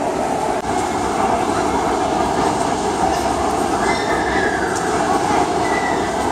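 Steady din of a large crowd talking and eating in a big, echoing indoor hall, with no single voice standing out.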